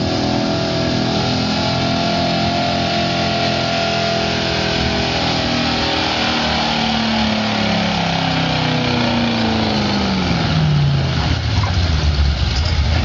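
Chevrolet pickup's 454 big-block V8 running hard under full load while dragging a pulling sled. From about six seconds in its pitch falls steadily as the engine bogs down under the sled's mounting drag, turning rougher near the end before cutting off.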